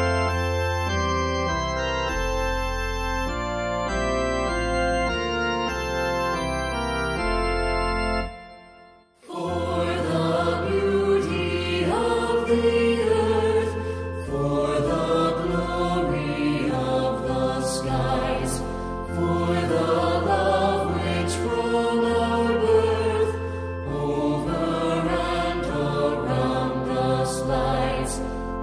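Organ holding the closing chords of a hymn, fading out about eight seconds in. After a brief gap, a new and fuller piece of music begins.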